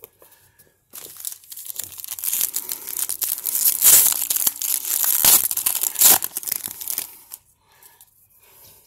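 Foil wrapper of a baseball card pack being torn open and crinkled by hand: a dense crackling and ripping that starts about a second in, is loudest in two sharp rips near the middle, and dies away after about seven seconds.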